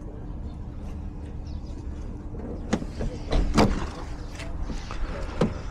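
A few sharp clicks and knocks from an Opel Astra J's door lock and latch as it is worked open, loudest about three and a half seconds in, with one more click near the end, over a steady low hum.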